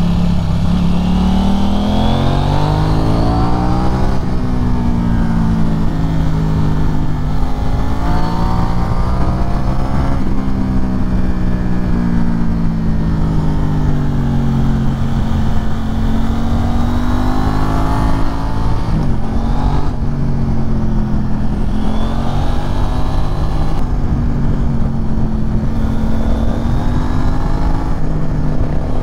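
KTM 790 Duke's parallel-twin engine through an Arrow Pro-Race exhaust, heard while riding, its pitch climbing and falling again and again as the bike accelerates and backs off through the bends.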